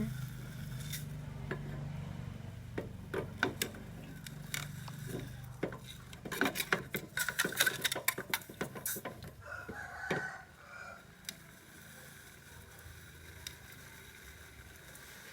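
A spoon clinking and scraping against a metal pot while a potassium nitrate and sugar mixture is stirred, with a quick run of clicks in the middle. There is a low steady hum in the first few seconds and a brief high call about ten seconds in.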